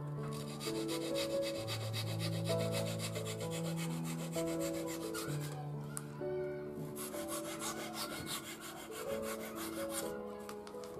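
Quick, even back-and-forth sanding strokes of a hand tool along the wooden rim of a round shoji frame, stopping for about a second and a half near the middle before starting again. Soft background music with long held notes plays underneath.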